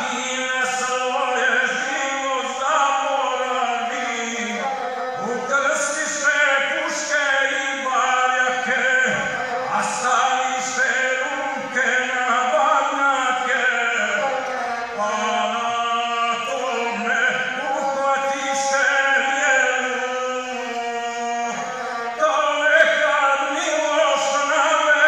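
A male epic singer chanting a Serbian epic poem while bowing the gusle, the single-string bowed fiddle sounding a continuous line beneath and along with the voice.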